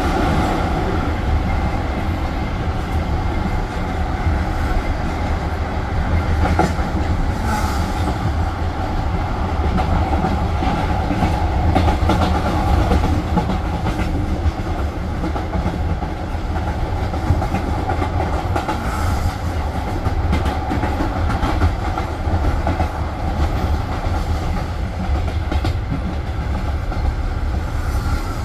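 Passenger train running on the rails: a steady low rumble of the carriage with the clickety-clack of the wheels over rail joints and a few sharper clicks.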